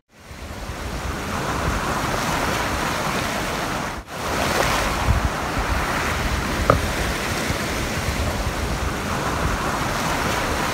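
Sea water washing and wind on the microphone, first across a harbour and then, after a sudden cut about four seconds in, from a kayak on choppy sea with a paddle dipping into the water. One brief click comes about two-thirds of the way through.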